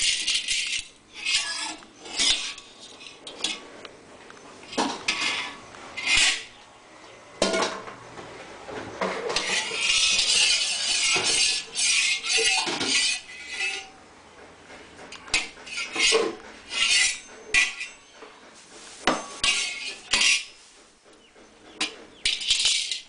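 Metal utensils clinking and scraping inside a large stainless steel wok as a ladle and a spatula are stirred and knocked around the pan, in irregular strokes with a longer run of continuous scraping about ten seconds in.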